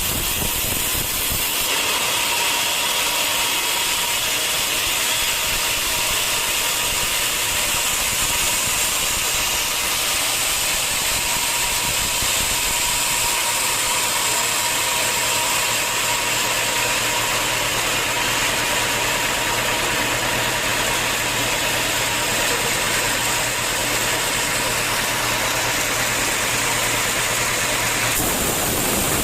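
Sawmill saw running through teak wood: a steady hissing rush over a faint hum, its texture changing abruptly about a second and a half in and again near the end.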